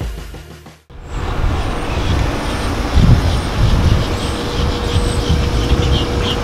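Background music fades out about a second in, then outdoor road-traffic noise with a low rumble and a steady hum. Faint high chirps repeat about three times a second in the second half.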